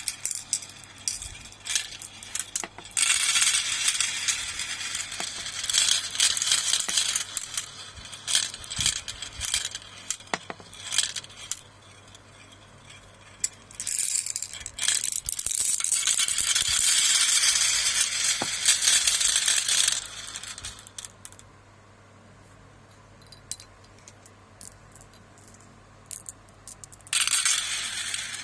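Marbles rolling and clattering down a marble run: sharp clicks and clacks of marbles knocking against the track and each other, with stretches of dense rattling as many roll together, thinning to scattered clicks for a few seconds about two-thirds of the way through.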